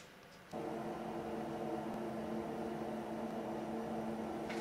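Wall-mounted Glow-worm gas boiler running, a steady hum with a rushing hiss that starts suddenly about half a second in.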